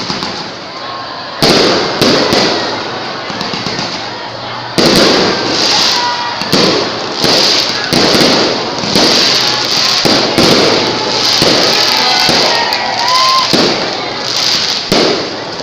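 Aerial fireworks going off in quick succession: loud bangs every second or so, each trailing into crackling.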